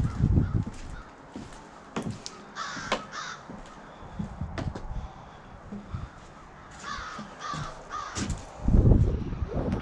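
Harsh, cawing bird calls, a short series about two and a half seconds in and another about seven seconds in. A low rumble at the start and a louder one near the end.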